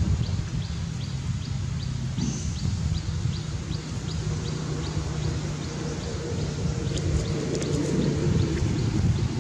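Outdoor ambience: a short, high ticking call repeating about two and a half times a second over a low steady hum; the ticking stops about seven seconds in, followed by a few light clicks.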